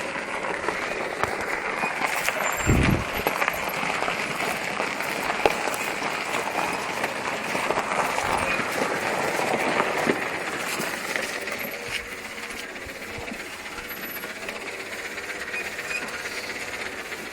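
A ride-on lawnmower rolls along, and its wheels and body give off a steady rattling, rolling noise with scattered clicks. There is a low thump about three seconds in, and the noise eases a little near the end.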